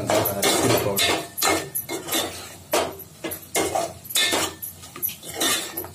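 Metal spoon scraping and knocking against a metal cooking pot while stirring chicken curry, in a string of repeated strokes about one every two-thirds of a second.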